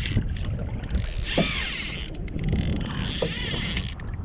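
Spinning fishing reel being cranked in two short bouts, its gears whirring, over low wind and water noise.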